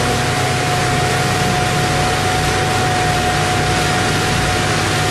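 Engines of concrete paving machinery running steadily: a continuous low drone under a loud, even hiss, with a thin steady whine on top.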